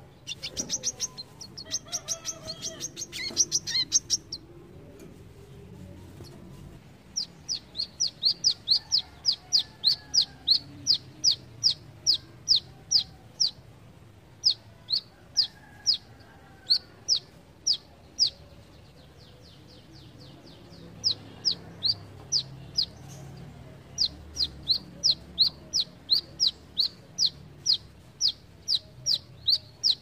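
Male brown-throated sunbird singing: a quick burst of rapid high chattering notes, then long runs of short, sharp, high notes that slur downward, repeated about two to three a second with brief pauses between runs.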